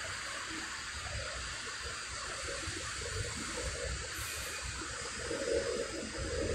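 Alstom Frota E metro train approaching along the platform: a steady hiss of wheels on rail over a low rumble, growing louder near the end as it draws closer.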